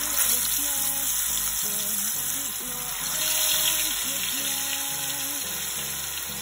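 Spice-coated fish pieces sizzling in hot mustard oil as they are laid into the pan, the frying starting suddenly and swelling as another piece goes in.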